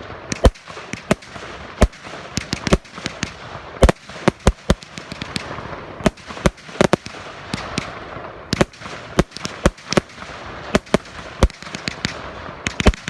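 Consumer firework barrage (cake) firing: a rapid, irregular run of sharp bangs, several a second, over a continuous hiss.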